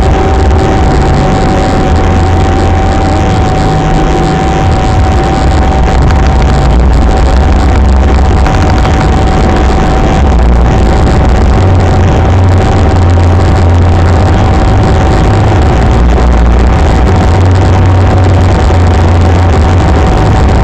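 Car driving at road speed, heard from inside the cabin through a dashcam microphone: loud, steady engine and tyre rumble with a constant high whine over it.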